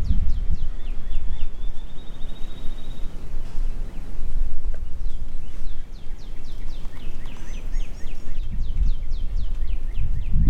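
Wind rumbling on the microphone, with a small songbird singing quick runs of short high downward-slurred notes and a brief trill.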